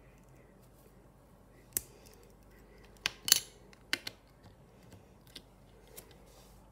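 Hard plastic clicks of Lego pieces snapping together as a minifigure is pressed onto the studs of a plate: a single click about two seconds in, a quick run of sharper, louder clicks around three seconds, two more just after, then a few faint taps near the end.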